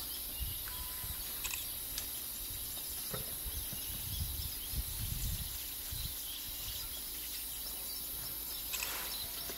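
Outdoor ambience: a steady low rumble with faint bird chirps and a few soft clicks.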